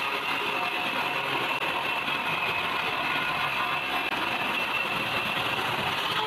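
Table saw running steadily, its blade spinning with a thin high whine over the motor noise, while a wooden board is fed across the table.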